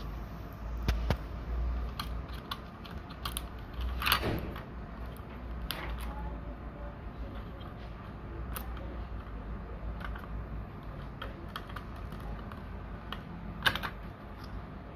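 Scattered small clicks and taps of hands working on an open laptop, fitting screws and small parts, with a few sharper knocks about a second in, about four seconds in and near the end, over a low steady hum.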